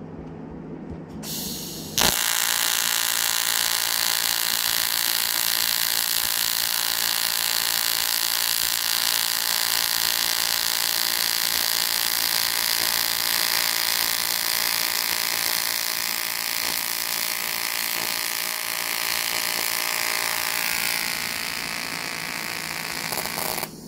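TIG welding arc on aluminium buzzing steadily with a hum of many fixed tones. It strikes suddenly about two seconds in, just after a brief hiss, eases slightly near the end and cuts off shortly before the end, leaving a hiss.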